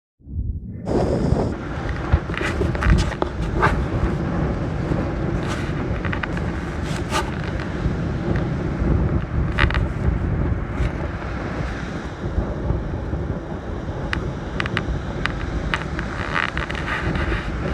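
Wind buffeting the microphone in a steady low rumble, with a few brief clicks.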